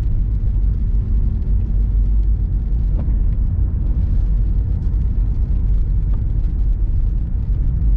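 Steady low rumble of a car driving on a wet road, with engine and tyre noise heard from inside the cabin.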